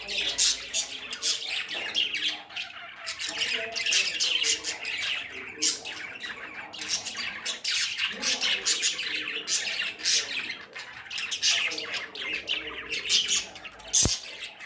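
Several budgerigars chattering and squawking in a constant stream of short, high chirps. A single sharp click comes near the end.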